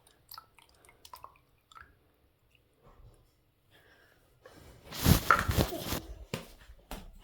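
Water running into a plastic bottle in one short burst about five seconds in, after a few light clicks of the bottle being handled, with a few more knocks as it ends.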